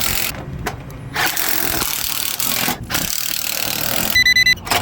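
Scraping or rubbing noises in several long strokes, each a second or more, then a brief burst of rapid electronic beeping near the end.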